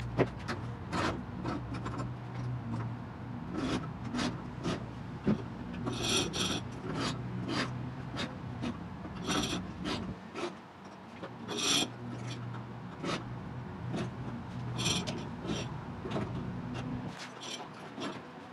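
A rope being pulled hand over hand through a four-to-one pulley hoist as a canoe is raised, rasping through the pulleys in repeated rubbing strokes, with a few short high squeaks.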